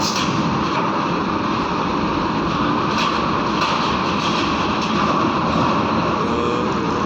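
Heavy diesel truck engines running in a steady, loud drone, with a few faint clicks.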